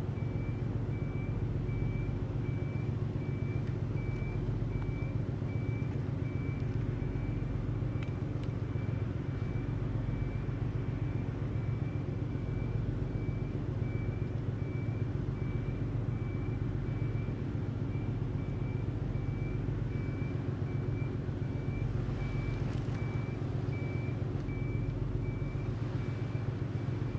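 High-speed catamaran car ferry's diesel engines running at low speed while it manoeuvres, a steady low hum. A faint high tone pulses evenly about twice a second throughout.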